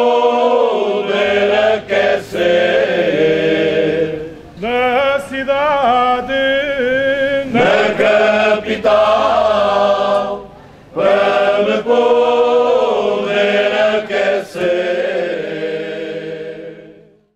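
Choir singing a song in sustained phrases with short breaks between them, fading out near the end.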